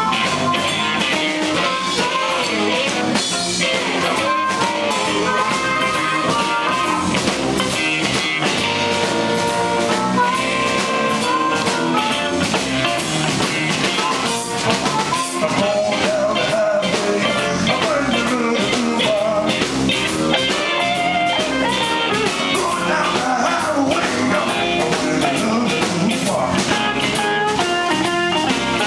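Live electric blues band playing an instrumental stretch over bass and drums: an electric guitar leads at first, and a blues harmonica played through a microphone takes over the lead about halfway through, with bending, wavering notes.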